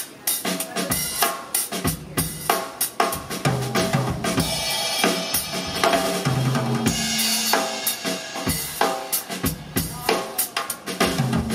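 A full drum kit played freely in a busy, varied groove, with kick drum, snare and tom hits coming densely and irregularly and cymbals in the middle stretch. This is the drummer playing the whole kit for the sound check so the engineer can set starting levels.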